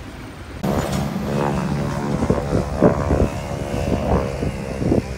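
Propeller airplane engine droning steadily overhead, starting abruptly about half a second in, with a few short thumps over it.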